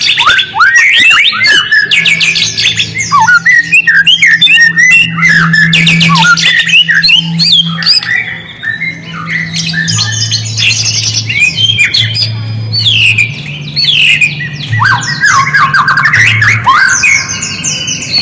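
White-rumped shama (murai batu) singing: rapid, loud chattering and squawking phrases mixed with quick sweeping whistles, easing off briefly about eight seconds in before resuming, over a faint low steady hum.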